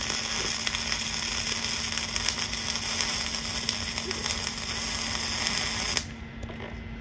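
Dual-shield (gas-shielded flux-cored) wire welding arc running: a steady crackling hiss that cuts off suddenly about six seconds in as the arc is broken.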